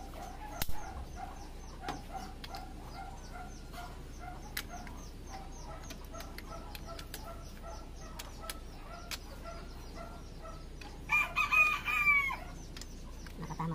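A rooster crows once, a call of about a second and a half starting about eleven seconds in. Faint, rapid, repeated chirping and a few sharp clicks run beneath it.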